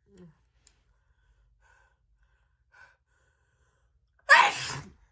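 A woman's single loud, wet sneeze about four seconds in, one of a sneezing fit, after a few faint catching breaths.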